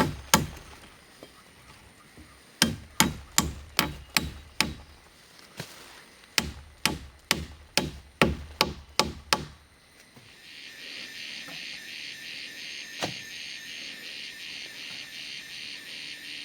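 Hammer blows driving nails into wooden poles, in three runs of quick strikes. The hammering stops after about ten seconds and a steady, pulsing chorus of crickets or cicadas carries on.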